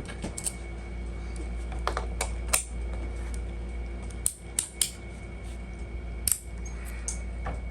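Small metal clicks and clinks, a dozen or so sharp ones in small clusters, from a warded padlock being handled.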